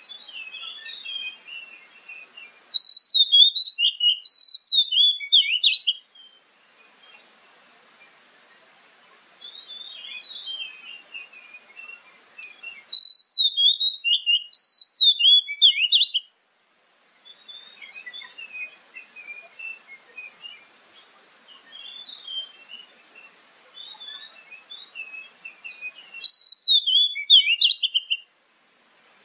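Oriental magpie-robin singing: three loud bursts of clear, rapid notes that glide up and down, with quieter, softer warbling phrases in between.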